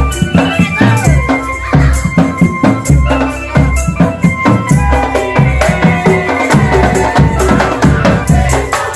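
Loud drum band music: drums and rattling percussion keep a fast, steady beat under a held melody line.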